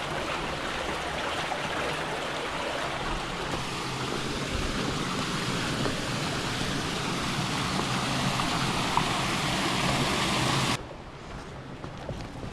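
Creek water rushing and splashing in a steady, even wash of sound, which cuts off abruptly about eleven seconds in.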